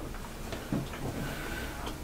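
A few faint, scattered clicks and taps from eating at the table, over a low background hum.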